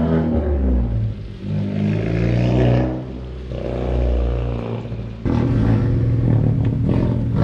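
Civic Type R FK8's turbocharged four-cylinder running through a catless downpipe and straight pipe, pulling hard and really loud. It eases off about three seconds in and comes back on sharply about five seconds in.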